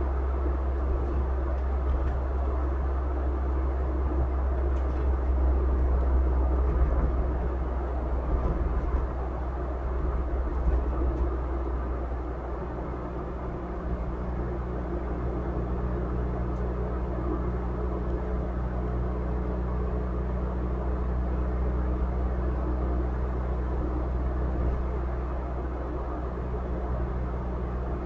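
Car driving along the road: steady road and engine noise with a deep rumble underneath. About halfway through, a steady engine hum at a constant pitch comes in.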